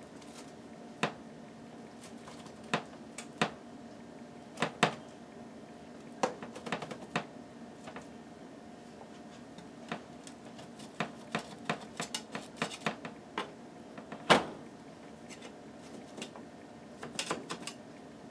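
A spatula cutting through a baked egg omelet on a metal baking sheet, its edge clicking and scraping against the pan in scattered strokes, with the loudest knock about fourteen seconds in.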